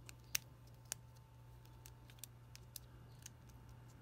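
Small clicks and ticks of a 3D-printed plastic extruder part and its sensor cable being handled as the wire is pressed into place: two sharper clicks in the first second, then a few lighter ticks, over a low steady hum.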